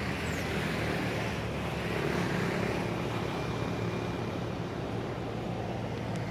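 Steady outdoor background noise, a continuous rumble and hiss with a low hum, with a brief high falling chirp just after the start.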